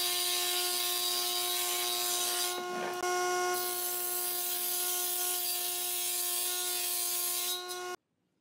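Belt-driven table saw's circular blade ripping a wooden plank lengthwise: a steady whine under a dense cutting hiss. The hiss eases for about a second a third of the way in, and the sound stops suddenly near the end.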